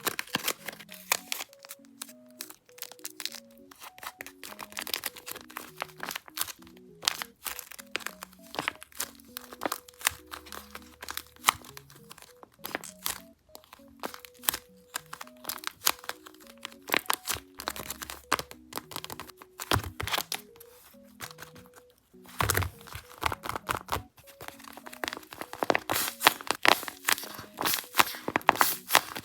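Crinkling and crackling of a paper squishy being handled, in quick irregular crackles that grow dense near the end, over soft background music with a simple melody.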